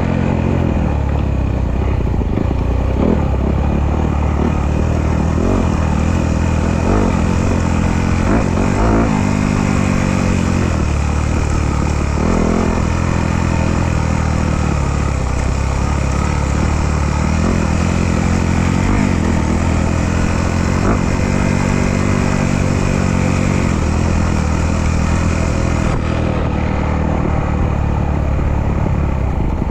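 Off-road dirt bike engine running and revving up and down, its pitch rising and falling every few seconds as the throttle is worked.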